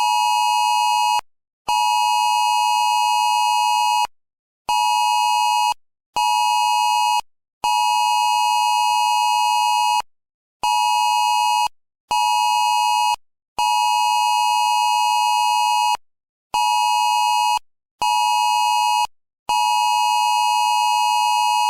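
Amber Alert emergency alert tone: a loud, harsh steady tone near 1 kHz sounding in a repeating cadence of one long blast followed by two short ones, with brief silent gaps between them.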